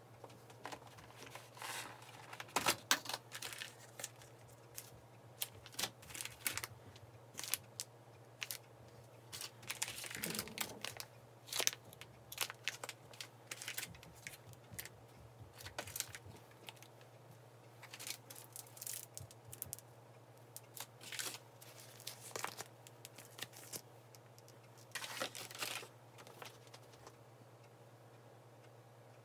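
Plastic food packaging crinkling and rustling in short, irregular bursts as a meal kit's vacuum-packed steak and plastic vegetable tray are handled and unpacked.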